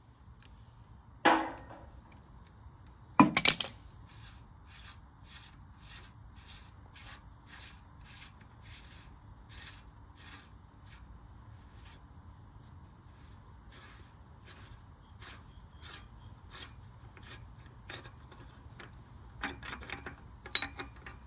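Insects trilling steadily in a high thin band, with a regular chirp about twice a second through the middle. Two loud sharp metal knocks about one and three seconds in, and a few lighter clicks near the end, from steel tools against the steel axle hub.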